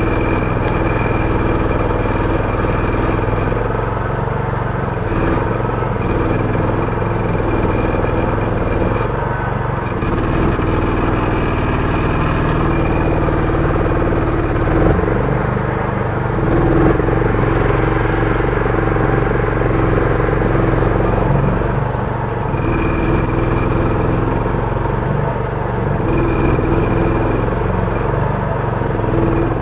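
BAWAD long-tail outboard motor running steadily under load, driving a small boat through thick marsh grass.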